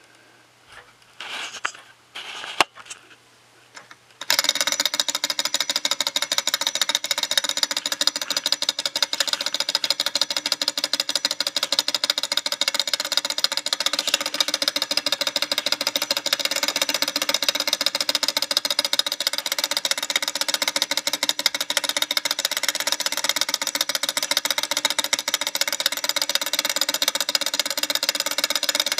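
Stirling model engine with a glass displacer cylinder, heated by a rubbing-alcohol burner, starting up about four seconds in and then running steadily. Its piston, linkage and belt-driven flywheel make a fast, even rattle. Before it starts there are a few light knocks.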